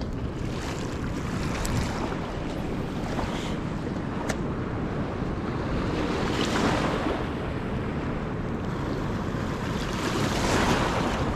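Wind rushing over the microphone above the wash of a fast river current along a gravel bank. The wind swells into gusts about six and ten seconds in.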